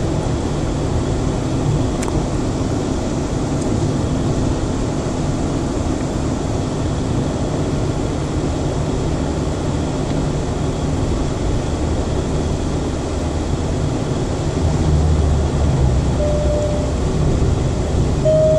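Steady engine and road noise heard from inside a moving car's cabin, swelling slightly near the end. A short faint tone sounds twice near the end.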